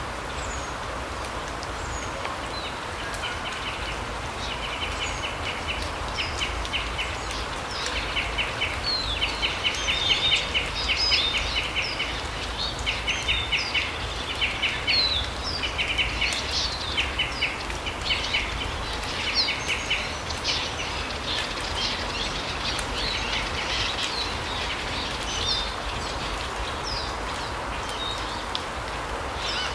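Small forest birds calling: bursts of quick, rattling trills and short high chirps, busiest in the middle stretch, over a steady low background rumble.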